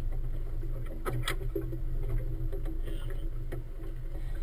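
Motorboat engine idling steadily with a low, even rumble. A few light knocks sound about a second in and again later.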